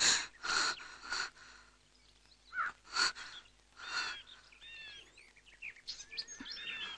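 Birds chirping and calling in short, scattered bursts, with several different calls and some short sliding whistles.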